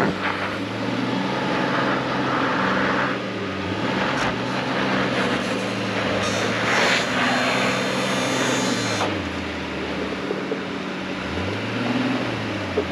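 Honda Passport's V6 engine working up a steep rocky climb, its revs dropping and rising again several times, with rushes of noise from about two to nine seconds in.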